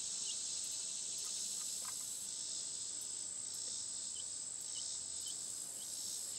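Steady high-pitched insect chorus, with a few faint short chirps over it now and then.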